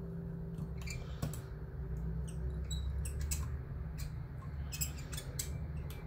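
Light, irregular metallic clicks of a rotor lock pick working inside a Cisa Astral cylinder lock as the pins are tested one by one for binding, over a low steady hum.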